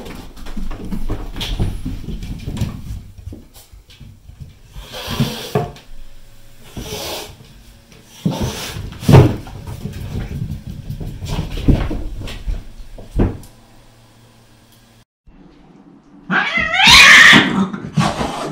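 Bengal kittens and a cat play fighting: scattered scuffles and thumps of paws, with short breathy bursts. About two seconds before the end one cat lets out a loud, wavering yowl, the loudest sound.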